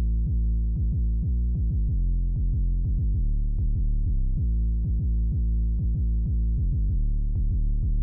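Sequoia/Prophet-5 Rev 4 analog synthesizer playing an 808-style drum patch: a quick pattern of deep, pitched hits, each falling sharply in pitch like a TR-808 kick or tom.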